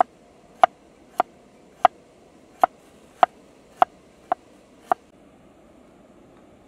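Steel cleaver chopping fresh turmeric root on a thick wooden chopping block: about nine sharp knocks, a little more than one a second, stopping about five seconds in.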